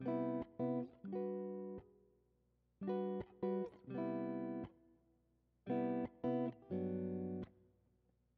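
Guitar music in three short phrases of plucked notes, each followed by a pause of about a second.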